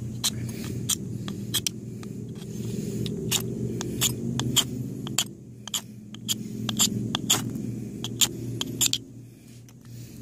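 A folding knife's blade scraped down a ferrocerium fire steel in short strikes to throw sparks onto shaved wet-fire tinder, making a string of sharp, irregular scrapes and clicks. A steady low rumble sits under it.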